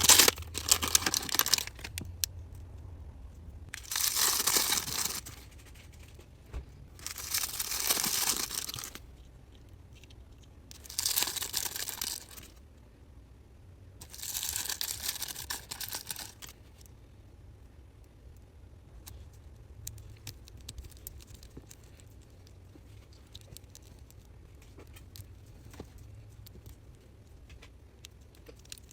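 Plastic toy packaging being torn and crinkled open by hand, in five bursts over roughly the first sixteen seconds, then only faint small clicks of handling.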